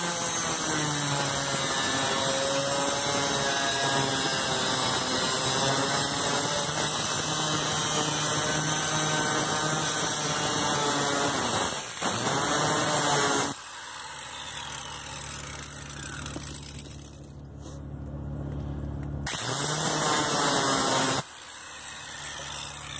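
Angle grinder with a thin cut-off wheel cutting through sheet-steel floor pan, its high whine wavering and sagging in pitch as the wheel loads up in the cut. It stops cutting a little past halfway, then runs up loud again for a couple of seconds near the end.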